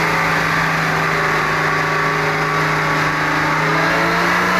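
The rear-mounted Hino diesel engine of a bus, running steadily at raised revs just after a hard start, its pitch beginning to fall right at the end.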